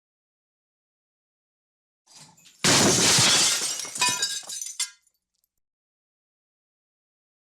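Glass breaking: a short faint lead-in, then a loud sudden shatter about two and a half seconds in, with shards chinking and ringing as it dies away over about two seconds.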